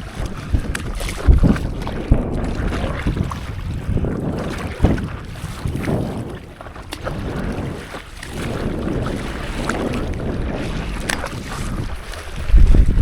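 Water splashing and sloshing around a stand-up paddleboard on the sea, with paddle strokes and wind buffeting the microphone. Irregular loud, low surges come through, the strongest near the end.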